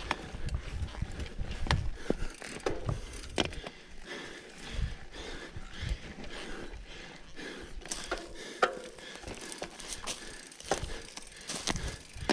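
Mountain bike ridden up a dry dirt climb: tyres crunching over loose ground, with irregular clicks and knocks from the chain and frame rattling, and gusts of wind buffeting the microphone.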